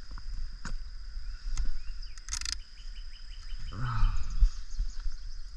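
Insects singing steadily in a high-pitched drone, with a short rustle about two seconds in, a quick run of chirps after it, and low knocks and handling rumble.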